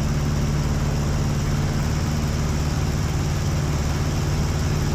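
Aeronca Chief's small four-cylinder piston engine and propeller running steadily at climb power, an even drone with no change in pitch.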